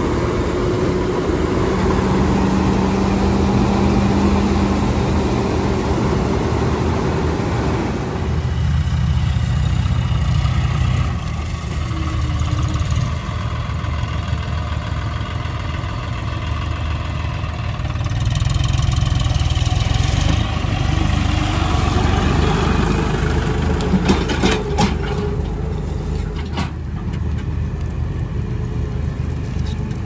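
Massey Ferguson 241 tractor's three-cylinder diesel engine running steadily at work, its sound swelling and easing as the load changes. A few sharp clicks are heard about three-quarters of the way through.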